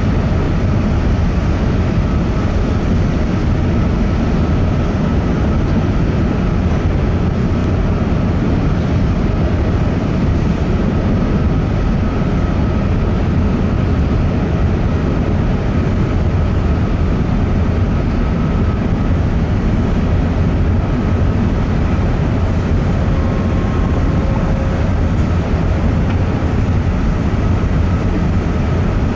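Steady, loud, low rumble and noise of the Coastal Celebration ferry under way, heard from on board as it comes in to dock. A faint steady high tone runs through it.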